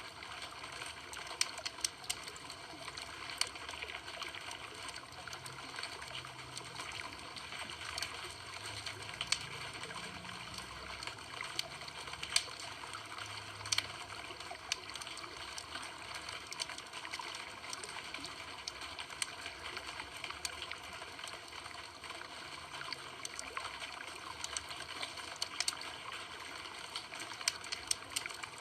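Campfire burning with a steady hiss and frequent irregular crackles and pops of burning wood.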